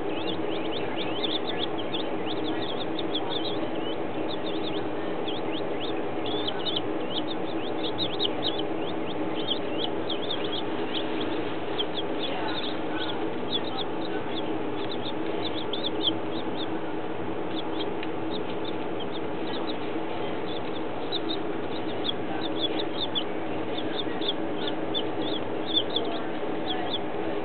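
Baby chicks peeping continuously, many short high peeps overlapping, over a steady low hum.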